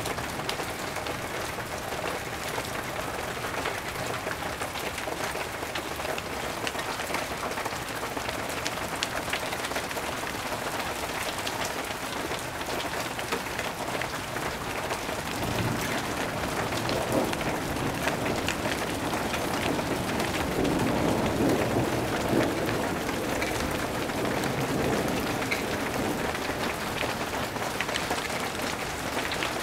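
Steady rain falling, with many small drop impacts. About halfway in, a low rumble of thunder swells, peaks and fades away before the end.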